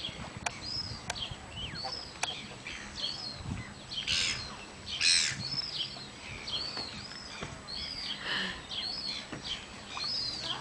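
Birds calling: many short, high, arched chirps repeating over and over, with two brief noisy rushes about four and five seconds in.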